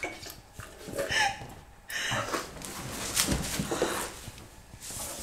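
A person slurping spilled coffee straight off a table top, in a few short noisy sucks.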